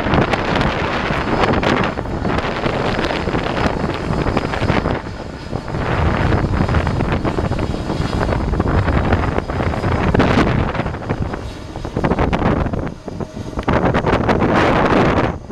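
Strong gusty wind buffeting the microphone, a loud rumbling rush that swells and eases every second or two.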